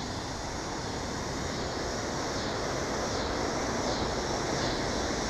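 Steady rushing background noise with no distinct events, growing slightly louder over the few seconds.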